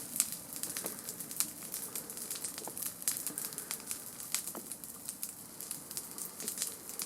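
Wood campfire crackling, with irregular sharp pops and snaps over a soft hiss.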